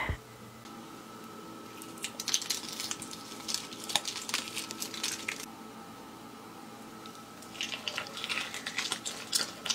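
A roast pork trotter being torn apart by hand: two spells of quick, crackly tearing of the crisp skin and meat against the foil tray, about two seconds in and again near the end, over a faint steady hum.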